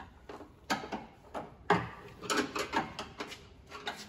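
Scattered clicks and knocks as hands and a Phillips screwdriver fumble at the metal height-adjustment fitting of an IKEA kitchen drawer, with the drawer front and box knocking now and then. A heavier knock comes a little under two seconds in.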